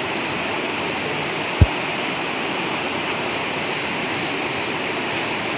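Steady rushing of river water flowing, with a faint steady high whine over it and a single sharp knock about a second and a half in.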